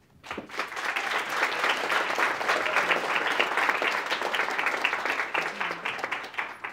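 Audience applauding: a dense, steady patter of many hands clapping that starts a moment in and dies away near the end.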